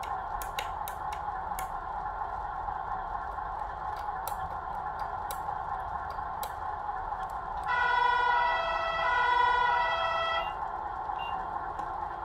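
Sound module speaker of a Tamiya 1/14 Scania RC truck (Servonaut SM7) playing a steady simulated diesel idle, with a few clicks at the start. About eight seconds in, the module sounds the truck's horn, a loud steady note held for about three seconds with a brief dip partway.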